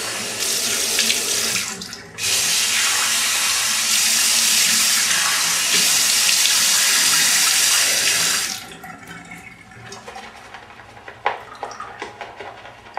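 Bathroom sink tap running, water splashing into the basin. The flow dips briefly about two seconds in, then the tap is shut off about eight and a half seconds in, followed by a few small knocks and clicks.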